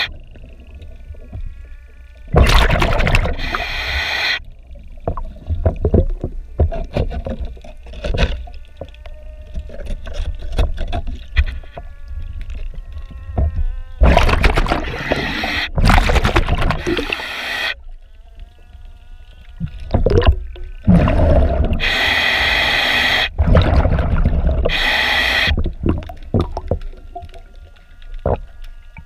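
Diver's breathing regulator heard underwater: three long loud bursts of exhaled bubbles, with quieter clicks and knocks between them.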